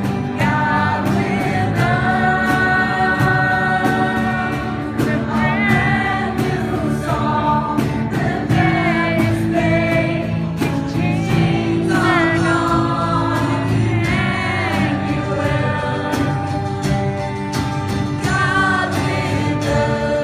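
Gospel music with a choir singing over an instrumental backing.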